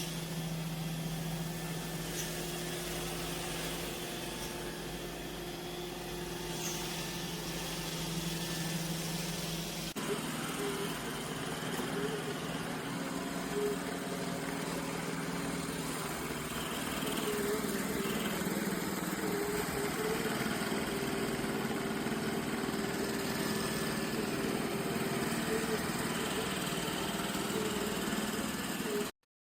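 Roomba j7+ robot vacuum running with a steady motor hum. The pitch of the hum changes abruptly about ten seconds in.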